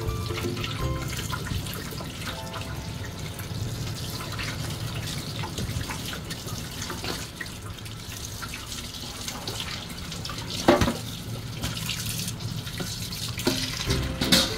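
Tap water running into a stainless steel sink while raw shrimp and chicken are rinsed by hand in a colander, with one sharp knock about eleven seconds in and some clatter near the end.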